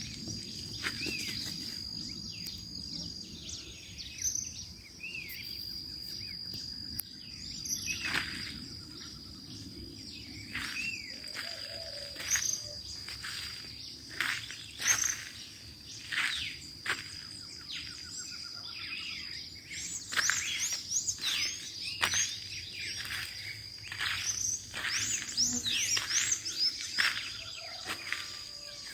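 Dawn chorus of several birds chirping and calling over a steady high-pitched insect drone; the bird calls come thickest in the last third.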